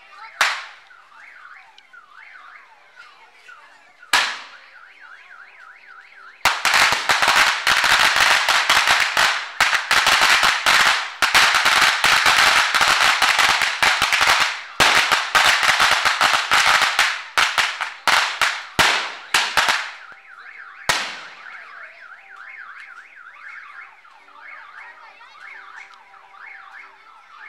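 A string of machine-gun firecrackers going off in a rapid, continuous crackle for about fourteen seconds. Single loud bangs come before it, twice, and once right after it. In the quieter stretches a car alarm warbles in the background.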